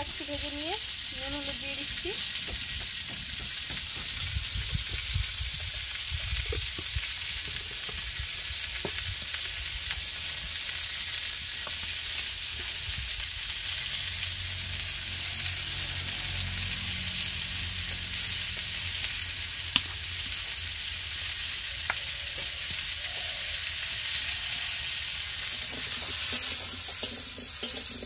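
Chopped onion and spices sizzling steadily in hot oil in a pan while being stirred, as the curry base is cooked down. A few sharp knocks come near the end.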